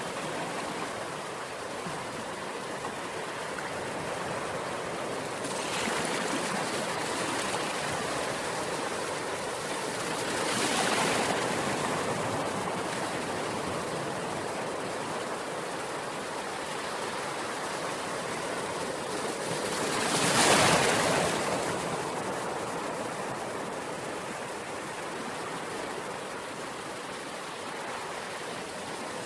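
Ocean waves washing ashore: a steady rush of surf with waves breaking louder about 6 and 11 seconds in, and the loudest one about 20 seconds in.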